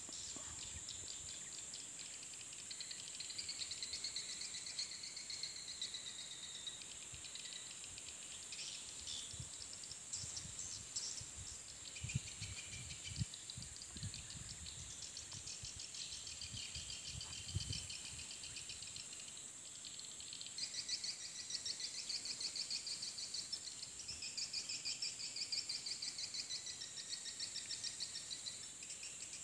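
Swiftlet calls: buzzy, twittering chirp trills that come and go in bursts, over a steady high insect drone. A few low thumps come around the middle.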